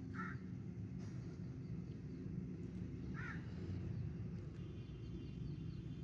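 Two short animal calls, one near the start and one about three seconds in, over a steady low background rumble.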